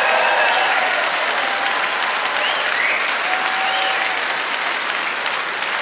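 Large audience applauding steadily after a punchline.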